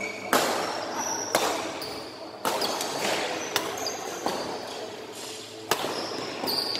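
Badminton rally: rackets striking the shuttlecock about seven times, roughly once a second, each hit a sharp crack that rings on in a large hall.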